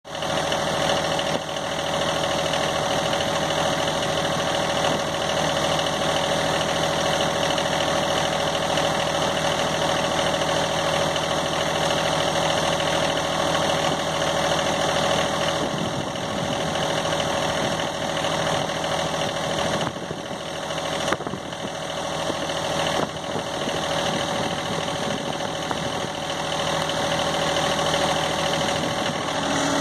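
John Deere compact tractor engine idling steadily, with a few short knocks about two-thirds of the way through.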